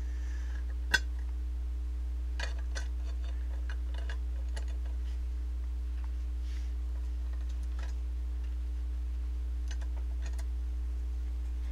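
Scattered light clicks and clinks of airsoft gearbox gears being dropped onto their metal bushings in a bare metal gearbox shell and handled, with one sharper click about a second in. Underneath runs a steady low hum.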